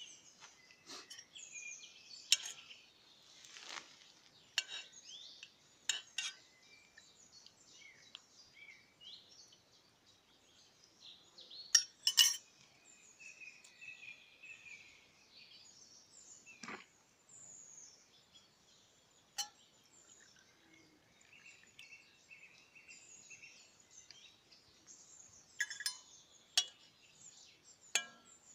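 Aluminium camping pots, lids and a spoon clinking and knocking now and then as they are handled, the sharpest clinks about twelve seconds in. Birds sing faintly behind.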